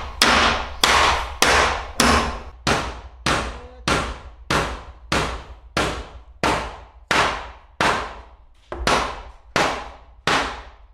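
A hand tool striking over and over at an even pace, about three blows every two seconds, each blow dying away quickly.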